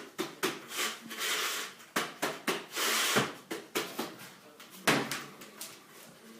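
Connecting profile pressed and slid along a perforated plastic corner bead set in mortar: repeated clicks and knocks with stretches of scraping, rubbing noise, as the bead is pressed straight.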